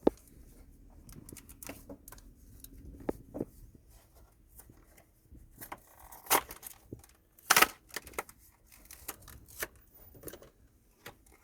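Handling noises as new halogen headlight bulbs are taken out of their packaging: scattered crinkling and small clicks, with two louder snaps about six and seven and a half seconds in.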